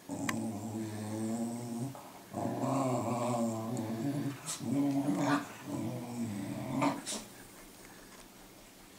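Puppies play-fighting, growling in four long stretches one after another, with a few short yips and scuffles, before it falls quiet near the end.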